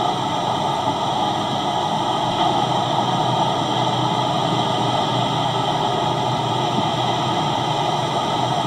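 Steady rushing noise of ocean surf and wind, even throughout with no separate events.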